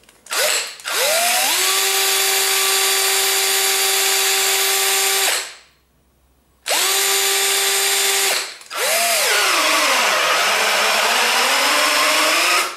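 Cordless drill motor running unloaded off a pack rebuilt with Sony 18650 lithium-ion cells, pulled in bursts: a short blip, then a run of about four seconds rising to full speed, a pause of about a second, and a longer run broken briefly partway, in which the pitch sags and rises again. It is a load test of the rebuilt pack.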